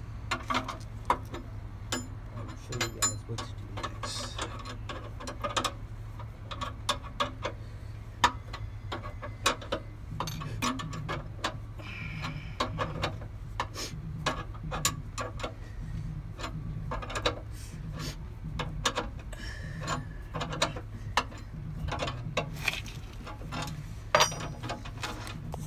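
Car jack being cranked down to lower the car, with repeated sharp metal clicks and, from about halfway on, a rhythmic low scraping stroke about twice a second.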